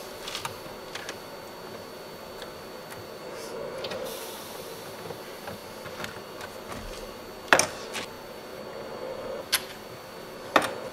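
Screwdriver work on a car dashboard's radio mounting screws: quiet handling and scraping, broken by a few sharp clicks and knocks of tool and metal against the dash. The three loudest come in the last three and a half seconds.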